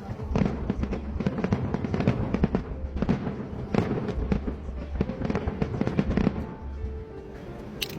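Aerial fireworks going off in rapid succession, a dense run of bangs and crackles that eases off near the end.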